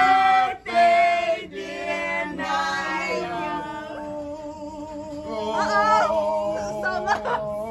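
Group of voices singing a birthday song together to a cake with a lit candle, men and women, ending in one long held note through the second half.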